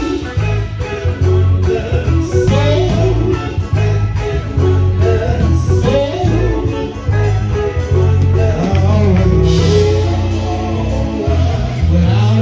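Live gospel quartet music: a male lead singer with backing vocal harmonies over electric guitar, a low bass line and a steady beat.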